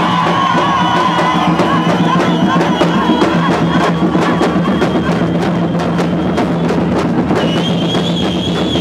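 Batucada samba drum group playing a fast, steady rhythm on big bass drums struck with soft mallets, with higher drums adding quick hits over the beat.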